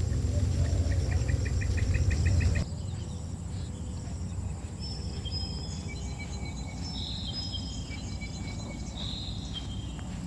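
Outdoor ambience of insects and birds chirping. At first it sits under a loud low rumble, with one insect chirping in rapid pulses. About two and a half seconds in, the rumble cuts off suddenly, leaving scattered short high chirps and whistles.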